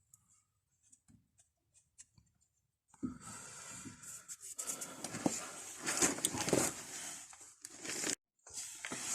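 Wire brush scrubbing the steel backing and edges of a disc brake pad, a rough, noisy scraping that starts about three seconds in after a few faint clicks and breaks off briefly near the end.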